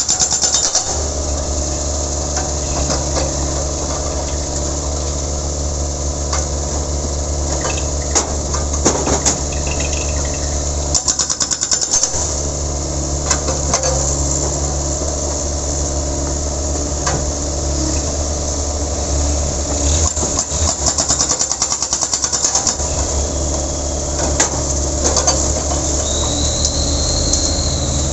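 Sunward 80E9 mini excavator's diesel engine running steadily under load. Its hydraulic breaker hammers in short spells of rapid, even blows.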